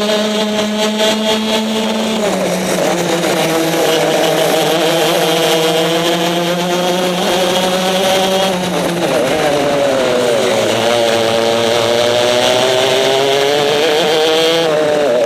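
Racing kart engine heard from onboard at racing speed. Its note drops about two seconds in as the driver lifts for a corner, holds, dips again around nine seconds, then climbs steadily under acceleration through the last few seconds.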